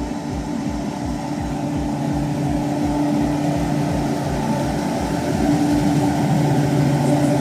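Deutz-Fahr 9340 TTV tractor's six-cylinder diesel engine running steadily, its note growing stronger from about two seconds in. A deep regular thumping about four times a second stops about six seconds in.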